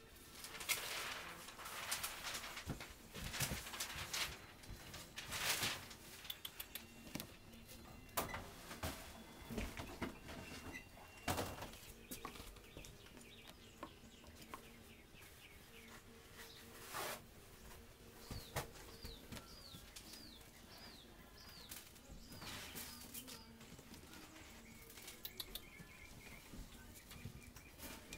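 Scattered scuffs, taps and rustles of a kitten batting, pouncing on and dragging a yarn pompom wand toy across a hard floor, busiest in the first dozen seconds. About two-thirds of the way through, a quick run of about eight high, falling chirps.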